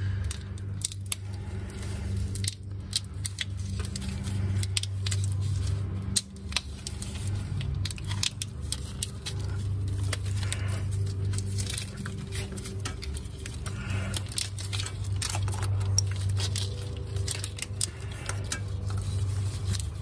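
Split corrugated plastic wire loom being handled and pushed onto the oxygen sensor wires: a run of irregular crinkling clicks and rustles over a steady low hum.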